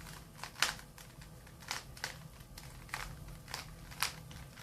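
Plastic Rubik's cube being turned by hand, its layers snapping round in a run of sharp, irregular clicks, about one or two a second: the final moves of a solve.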